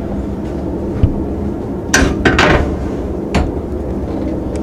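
Steady low hum below decks with a few knocks and clatter: a single knock about a second in, a louder burst of clattering knocks around two seconds, and one more knock a little past three seconds.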